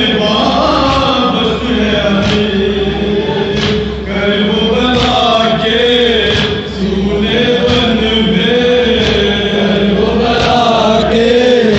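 Men chanting a noha, a Shia mourning lament, in unison over a microphone, with sharp thumps of chest-beating (matam) at intervals.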